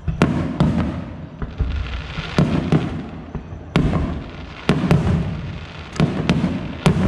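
Aerial firework shells bursting in quick succession: about a dozen sharp bangs, several coming in close pairs, each followed by a rolling rumble of echo.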